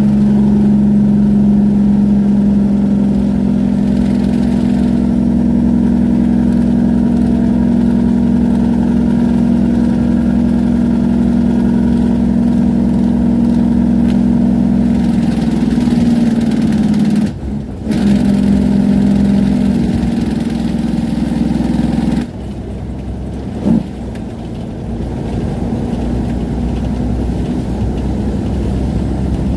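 A semi truck's diesel engine brake running hard and steady, a deep droning note holding the truck back on a long downgrade. It breaks off for a moment a little past the middle, then comes back, and near the three-quarter mark it drops to a quieter engine sound.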